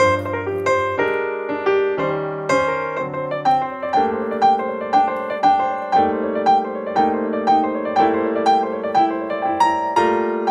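Background music: a piano playing a gentle melody over held chords, with notes struck in a steady pulse of about two a second.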